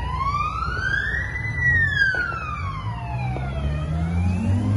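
A siren wailing, its pitch sliding slowly up and then down, one full rise and fall taking about four seconds, over a low traffic rumble. Near the end a vehicle engine climbs in pitch.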